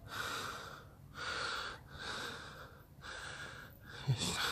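A person breathing heavily close to the microphone: about five breaths, roughly one a second.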